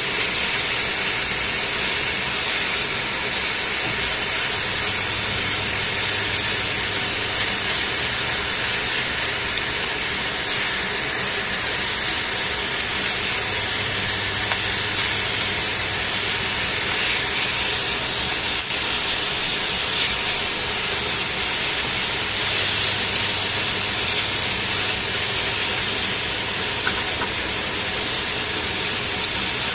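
Chicken pieces sizzling in a hot stainless steel pan: a steady frying hiss as they are turned with tongs.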